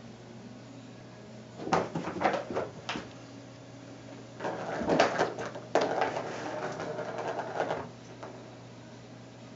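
Plastic ball knocking and rattling around the plastic track of a Bergan Turbo Scratcher cat toy as a cat bats it. A few sharp knocks come in the first three seconds, then about three seconds of continuous rolling clatter with clicks.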